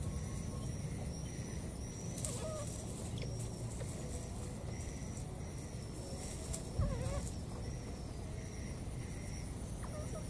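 Outdoor ambience with a short, high chirp repeating roughly once a second, and two brief wavering animal calls, one about two seconds in and one about seven seconds in.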